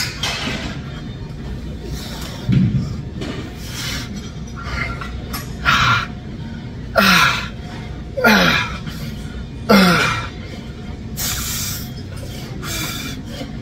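A man grunting hard with effort through a set of dumbbell front raises: about five loud grunts, each dropping in pitch, then heavy breathing near the end.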